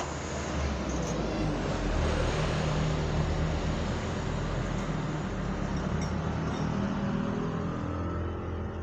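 A motor vehicle passing on the road, its engine and tyre noise swelling over the first couple of seconds and slowly fading near the end.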